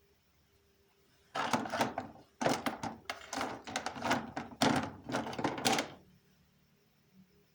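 A burst of dense clattering and rustling, as of objects and packaging being handled, starting just over a second in and stopping about six seconds in.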